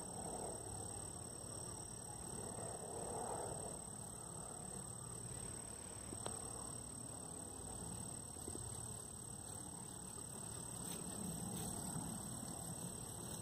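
Quiet outdoor ambience: a steady high-pitched drone over a low background rumble, with one soft click about six seconds in.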